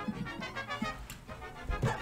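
Music playing, with a louder low thump near the end.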